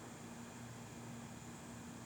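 Steady, faint hiss of wind with no gusts, over a faint low steady hum.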